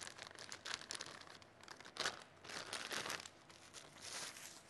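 Clear plastic bag and bubble wrap crinkling as a lens adapter is unwrapped by hand, in irregular crackles that are loudest about two and three seconds in.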